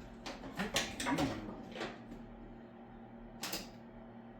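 Plastic automotive wiring parts being worked apart by hand, creaking and clicking: a cluster of short clicks and scrapes in the first two seconds, then another about three and a half seconds in.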